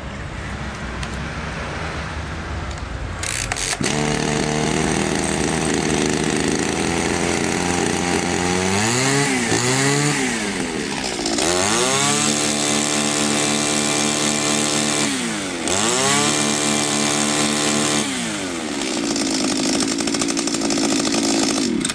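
Echo 2655 two-stroke trimmer engine starting, catching about three and a half seconds in and settling to idle. It gets a couple of quick throttle blips, then is held at high revs with a brief dip before dropping back to idle. It revs freely and runs well now that its clogged muffler screen and exhaust port have been cleaned.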